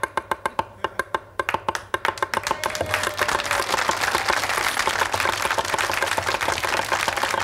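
Chinese cleaver rapidly chopping lean pork into mince on a wooden butcher block, about seven strokes a second. About two seconds in, studio audience applause joins and builds over the chopping.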